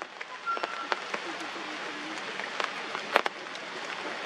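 Rain falling on forest foliage: a steady hiss with irregular sharp taps of larger drops, the loudest about three seconds in.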